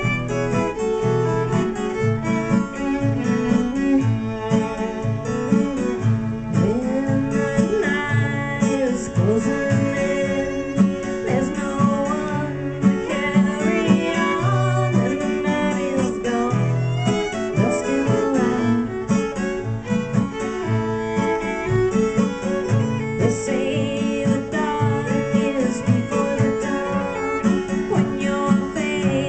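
Live acoustic guitar strummed in a steady rhythm with a fiddle playing the melody over it, a folk or country tune.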